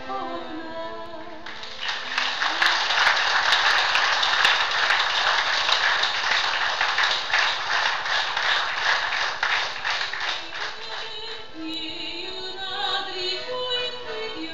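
An accordion piece ends and a seated audience applauds for about ten seconds. Accordion music starts up again near the end.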